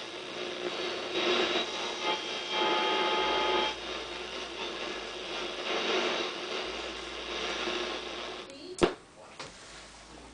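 Wards Airline 8-band AM/FM/CB portable radio being tuned across its dial: static rising and falling in surges, with fragments of stations and steady whistling tones where signals come in. A sharp click comes about nine seconds in, after which the sound drops away.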